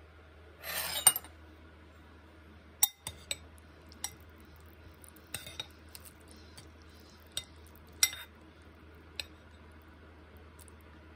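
Metal spoon scraping and clinking against a bowl while scooping beef meatballs and noodles out of broth: a short scrape about a second in, then scattered sharp clinks every second or so, over a steady low hum.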